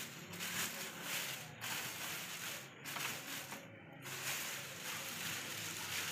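Clear plastic packaging rustling and crinkling as a padded baby mattress set is handled and pulled out of it, in uneven bursts with a few short breaks.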